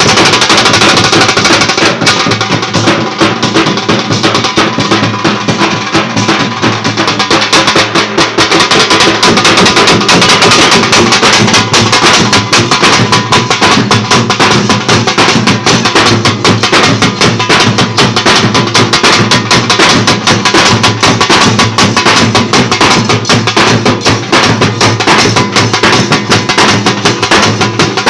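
Loud, continuous band music from a Maharashtrian baja band, driven by fast, dense drumming.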